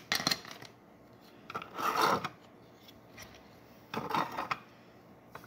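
Hard plastic toy kennel pieces scraping and rubbing against each other as they are pushed together by hand, in three short bouts about two seconds apart.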